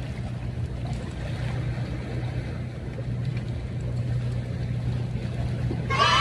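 Steady low drone of a boat engine, with a man's voice breaking in loudly at the very end.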